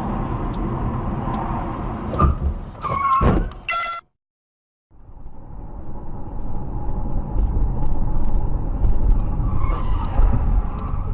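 Road and engine noise of a car driving, with a few sharp knocks and a short high-pitched sound a few seconds in, then a second's dead silence before steady road rumble resumes.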